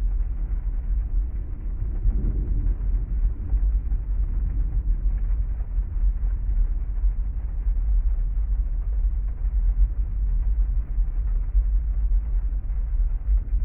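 Storm ambience: a steady, deep rumble under a muffled wash of heavy rain.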